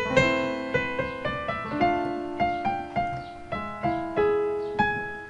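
Short tune in chords played on a digital piano in A minor, using the raised seventh, G sharp, of the harmonic minor scale and coming to rest on A. It is a quick run of struck notes and chords, with the last chord near the end left ringing.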